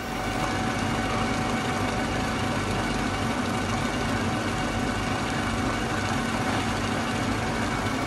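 Portable induction hob running under a saucepan of coffee coming to the boil: a steady loud hum and fan rush that starts and cuts off suddenly.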